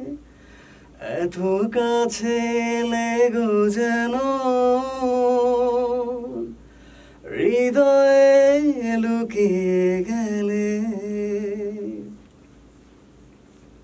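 A man singing two long, drawn-out phrases with a wavering vibrato into a close studio microphone, with no accompaniment heard; there is a short break between the phrases and the voice stops about twelve seconds in.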